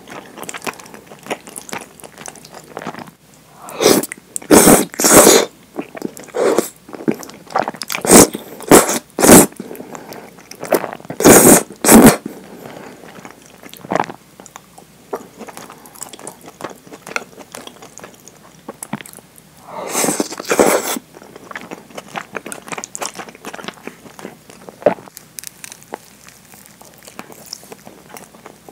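Close-miked eating of thick curry udon: several clusters of loud, short slurping bursts as noodles are drawn in, the last about twenty seconds in, with wet chewing and small mouth clicks between them.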